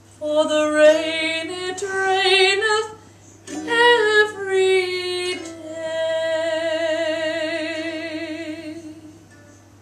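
A woman singing a melody in a few short phrases with vibrato, then holding one long wavering note that fades out near the end.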